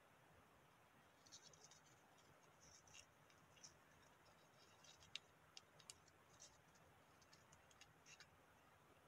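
Faint rustling and small clicks of folded mini colour-paper petals being pressed and adjusted between the fingers, starting about a second in and stopping shortly before the end.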